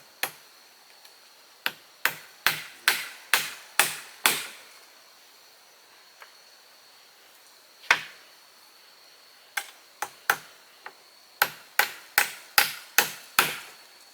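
A tool chopping into wood: sharp single blows in quick runs of about two a second, a run of six about two seconds in and another of six near the end, with a few lone blows between.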